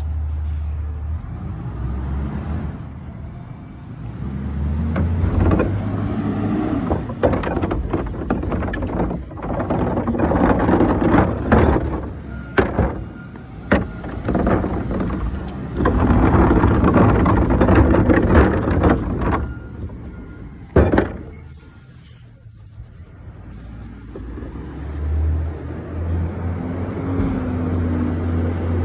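Garbage truck at the curb: its engine running steadily, with a long stretch of clanking and knocking as a bin is handled and emptied. One sharp bang comes about two-thirds through, then the engine hum settles back in near the end.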